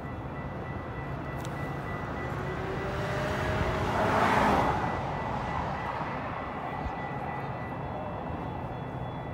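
Steady outdoor city rumble, with a passing vehicle that swells up and fades about four seconds in, under a faint steady high whine.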